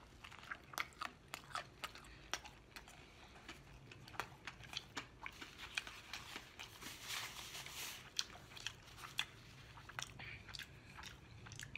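Close-up eating of a burger topped with potato chips: faint, irregular crunches and mouth clicks of biting and chewing, with a short rustle about seven seconds in.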